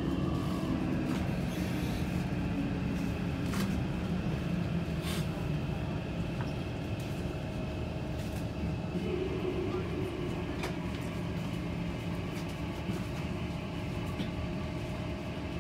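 Interior noise of a Kawasaki C151 metro train coming to a stop at a station platform: a steady rumble with a low motor hum that stops a few seconds in as the train halts, then a steady hum while it stands, with a few light clicks.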